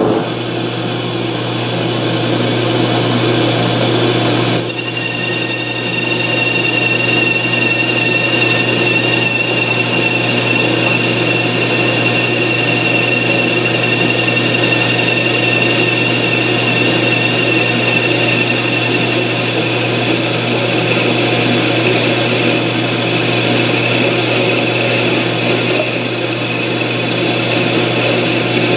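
A 12-inch Craftsman/Atlas metal lathe starts up and runs steadily with a low motor hum. About five seconds in, a parting (cutoff) tool begins feeding into the spinning bar and adds a steady high-pitched whine, with the cut going smoothly and without chatter.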